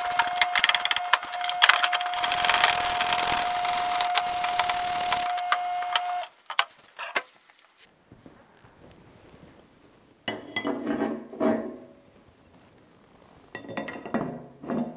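Stiff brush scrubbing a part in a parts washer's foamy solvent, a loud hiss over a steady whine, stopping about six seconds in. Later come two short bouts of scraping and knocking as red caps are set into holes in a cast iron machine base.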